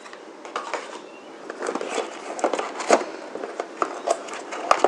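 Plastic wrapping and a cardboard box handled by hands: irregular crinkles and clicks, with a sharp click near the end.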